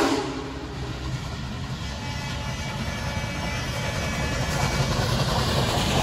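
Union Pacific Big Boy 4014, a 4-8-8-4 articulated steam locomotive, rolling nearer and past with its train, a low rumble growing louder toward the end; its steam whistle stops right at the start.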